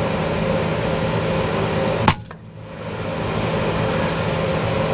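A single shot from a suppressed FX Wildcat MK3 BT Compact .22 PCP air rifle about two seconds in: one short, sharp crack. It is the follow-up shot on a pigeon. A steady background hum runs throughout.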